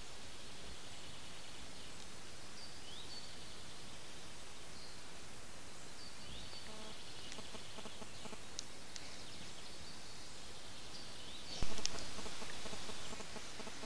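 Steady hiss of a trail camera's microphone with a short high call repeating every two seconds or so. About three-quarters of the way through comes a sudden loud burst of noise that fades away over about a second and a half.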